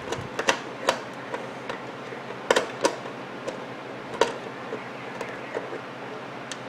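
Irregular light clicks and taps of small metal clock parts being handled as the threaded washer is unscrewed from the clock movement's hand shaft.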